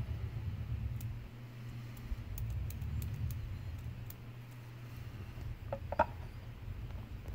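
Faint ticks from a small brass flyball governor being handled, then a single sharp knock about six seconds in as it is set down on a wooden board, over a low steady hum.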